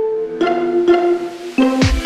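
Background music of sustained pitched notes, with a deep drum hit coming in near the end.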